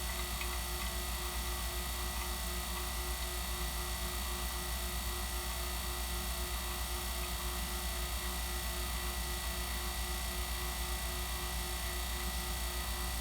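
HVAC vacuum pump running with a steady hum, its gas ballast closed, pulling a system down through deep vacuum in the low thousands of microns.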